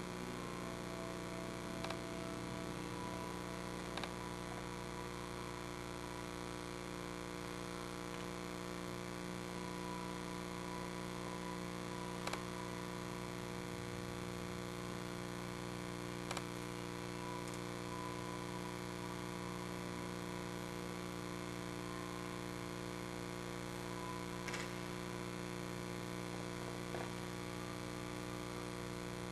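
Steady electrical mains hum with a few faint clicks scattered through it.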